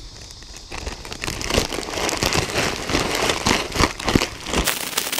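Plastic bag crinkling and crackling as it is squeezed and kneaded by hand to mix wet carp pack bait of oats, feed pellets and creamed corn inside. It starts about a second in and gets louder and busier after that.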